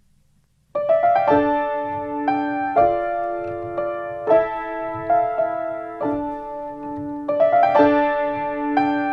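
Piano playing slow, gentle chords and melody, beginning about a second in.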